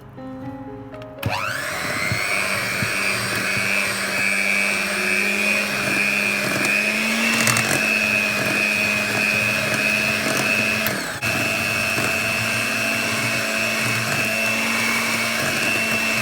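Electric kitchen mixer motor starting up with a rising whine about a second in, then running steadily at high speed, with a brief dip about two-thirds of the way through before cutting off at the end.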